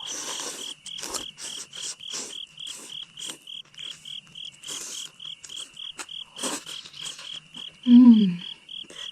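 A cricket chirping steadily, about three chirps a second, over close-up chewing and mouth sounds of someone eating. A short falling "mm" of a voice comes near the end.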